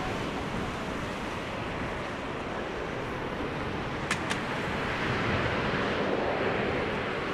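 Steady rushing noise of the Boeing 787-8 Dreamliner's GE turbofan engines at low taxi thrust as the airliner rolls along the taxiway. Two short sharp ticks come about four seconds in.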